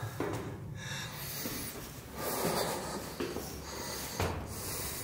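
A man breathing hard, winded from climbing a tower stairway, with a few short soft knocks.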